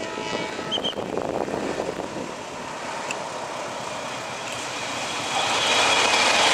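Diesel locomotive hauling a passenger train, approaching and running past, with engine and rail noise. It grows clearly louder about five seconds in as the locomotive passes close by.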